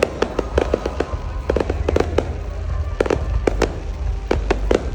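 Fireworks display: a rapid, irregular run of sharp bangs and crackles from bursting shells over a continuous low rumble.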